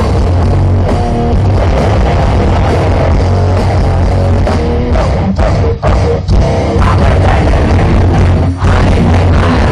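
Grindcore band playing live through a festival PA, heard loud from within the crowd. The music stops dead for an instant several times past the middle, short breaks between blasts.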